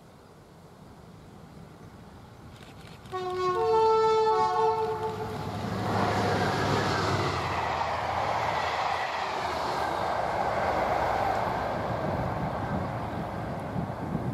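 Class 68 diesel locomotive sounding its two-tone horn, a short lower note then a higher note held about two seconds. Then a train top-and-tailed by two Class 68 locomotives passes at speed with a long, steady rush of engine and wheel-on-rail noise.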